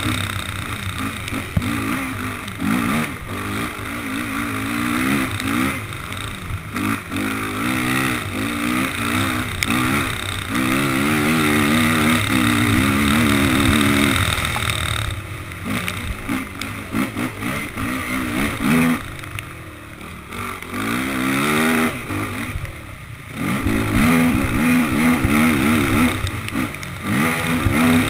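Honda racing quad's engine, recorded on board, revving hard with its pitch rising and falling over and over as the throttle opens and shuts through the gears. About two-thirds of the way through it twice drops off briefly before pulling hard again.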